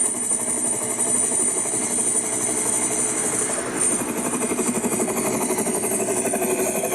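An engine running steadily with a fast, even pulsing and a thin high whine.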